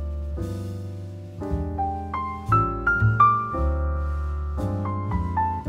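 Background piano music: a slow melody of single notes over low held notes.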